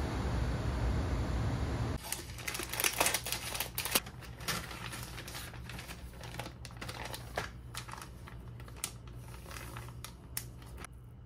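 A steady rushing noise cuts off about two seconds in, followed by scattered light clicks, taps and rustling, as of small objects being handled.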